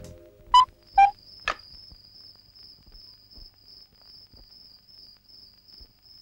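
Cuckoo clock giving a single two-note cuckoo call, high then lower, followed by a click. Crickets then chirp steadily in a high, pulsing trill.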